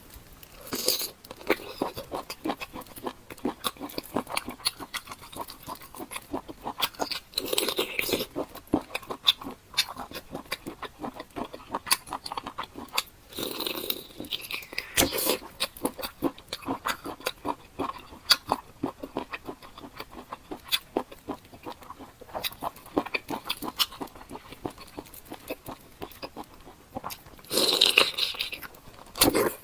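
Close-miked eating of a large octopus tentacle: steady wet chewing with many small mouth clicks, and a few louder bites.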